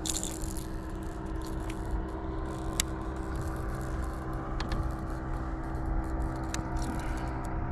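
Steady hum of a battery-powered electric kayak motor, with a few sharp clicks and light rattling from a hardbody lure's hooks as a small redfin is unhooked.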